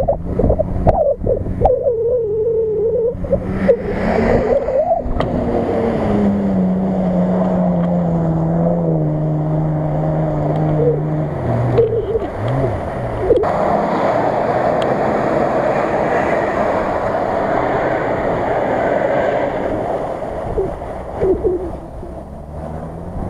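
Off-road 4x4 engine revving as the vehicle ploughs through a flooded, muddy field, with water splashing and sloshing around it. The engine note climbs, then falls steadily over several seconds before a long spell of noisy splashing.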